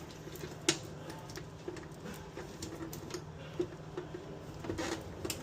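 Scattered light clicks and taps of hands working on electrical wiring and plastic fittings, with a sharper click about 0.7 s in, over a steady low hum.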